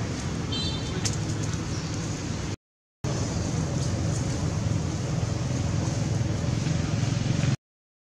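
Steady low rumble and hiss of outdoor background noise, broken twice by sudden half-second dropouts to silence, about two and a half seconds in and again near the end.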